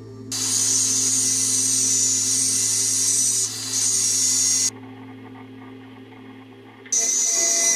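Electric angle grinder with a thin cut-off disc slicing through a steel tube held in a vise: a high, hissing grind that dips briefly partway through, stops about five seconds in, and starts cutting again near the end. A steady low hum runs underneath.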